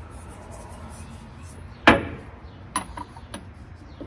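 A sharp metal clank about two seconds in, followed by a few lighter clicks and taps, from a car's driveshaft being worked loose from underneath.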